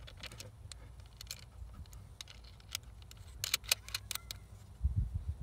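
Small metallic clicks and taps of a battery cable's ring terminal and terminal hardware being handled on a 12-volt deep-cycle battery post, scattered, with a quick run of clicks a little past the middle and a low thump near the end.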